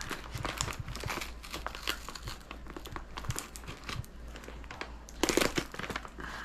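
Clear plastic tape and brown paper wrapping of a parcel crinkling and crackling as it is cut and pulled open with a small knife, with a louder rip about five seconds in.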